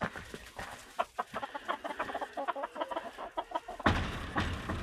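Silkie chickens clucking with many short, quick calls. About four seconds in, a rustling noise of movement starts.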